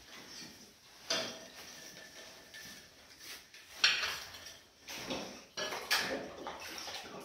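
Small ceramic wall tiles clinking and clattering as they are picked up and handled. There are a few sharp knocks, the loudest about four seconds in.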